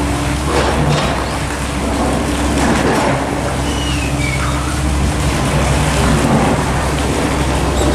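Construction machinery running: a steady engine drone under a loud, even wash of rushing noise.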